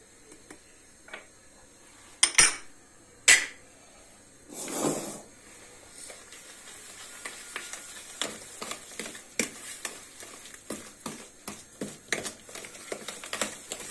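A spoon clinking and scraping in a bowl as semolina cake batter is mixed: two sharp clinks about two and three seconds in, a short rush about five seconds in, then quick, uneven clicks and scrapes of steady stirring.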